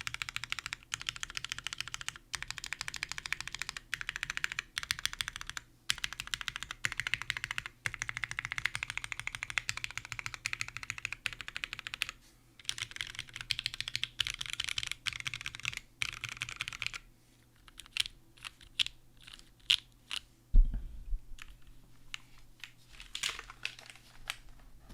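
Rapid key spamming on a Cruel World 88 mechanical keyboard with lubed Cherry MX Nixie switches on a polycarbonate plate and GMK ABS keycaps: dense runs of clacking broken by short pauses. About 17 seconds in it slows to single key presses, with one heavy thump about 20 seconds in.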